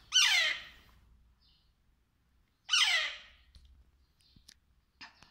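Pet parakeet giving two harsh squawks about two and a half seconds apart, each falling in pitch. A few faint clicks follow the second squawk.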